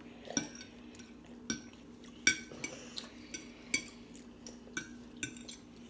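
Metal fork clinking and scraping against a ceramic dinner plate while eating: about seven sharp, briefly ringing clinks spread unevenly, the loudest a little past two seconds in.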